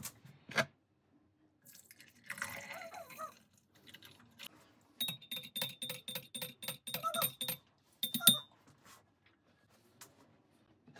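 A spoon stirring in a cup, clinking against the side in a quick even run of a dozen or so ringing clinks, a little over two seconds long. Before it comes a short liquid splash, and after it a couple of louder clinks.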